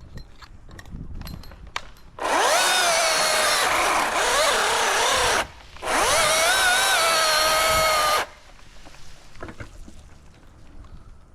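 Milwaukee battery top-handle chainsaw spinning up to a high whine and cutting wood in two runs, its pitch dipping and wavering under load. The second run stops when the battery runs out of charge.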